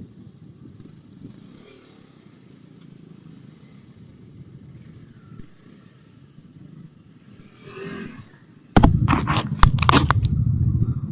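Motorcycle engine ticking over faintly at a low, steady rumble. A little under nine seconds in, it turns suddenly loud with sharp crackles and keeps going until it cuts off near the end.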